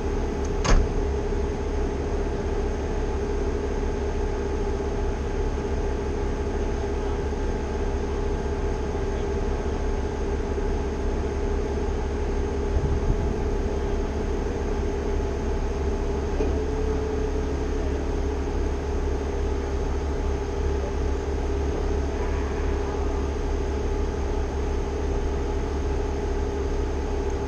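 Heavy machine's engine running steadily at a constant speed, a low drone with a steady hum. There is a sharp click about a second in and a couple of light knocks around halfway.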